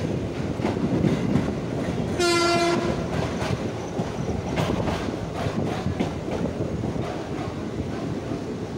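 Passenger train running at speed, heard from aboard a coach: a steady rumble with wheels clacking over rail joints. About two seconds in, a single short train horn blast sounds.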